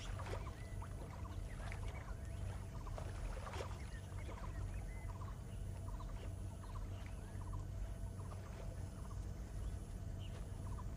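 Wetland wildlife ambience: many short, scattered chirps and calls over a steady low hum.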